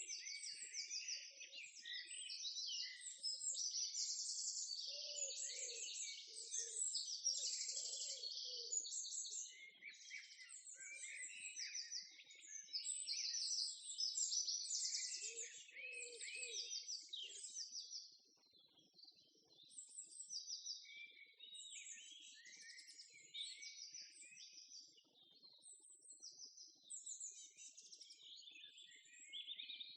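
Several small birds singing and chirping, with high trills and twitters overlapping and some lower notes now and then. The song is denser and louder for the first half and thins out after about eighteen seconds.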